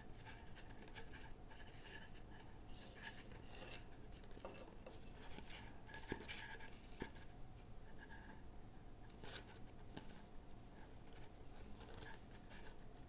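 Faint rustling and scratching of Kevlar shock cord being stuffed down a model rocket's body tube and a nose cone being handled at its open end, with a couple of light clicks about six and seven seconds in.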